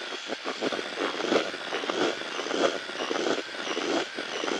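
Cordless drill spinning a wire whisk mixer through wet fishing groundbait in a bucket: the motor running under the churning and scraping of the mix.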